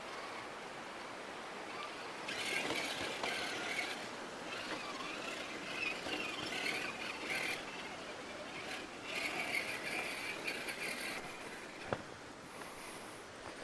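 Axial Trail Honcho RC rock crawler's electric motor and gearbox whining in bursts of a few seconds as it is driven in starts and stops over rocks, with quieter gaps between. A single sharp knock about twelve seconds in.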